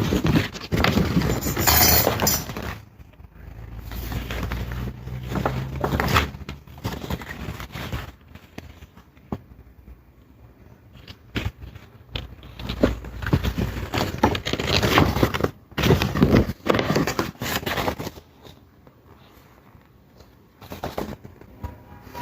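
Paper and plastic album packaging being handled and leafed through, with rustling, crinkling and irregular sharp clicks and taps.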